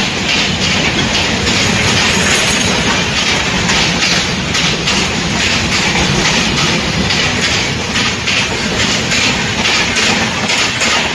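Container freight wagons rolling past close by at speed, their wheels clattering steadily over the rail joints in a rapid run of clicks.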